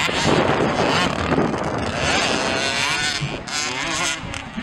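Mini motocross bikes' small two-stroke engines running on the track, their pitch rising and falling with the throttle in the second half, mixed with wind buffeting the microphone.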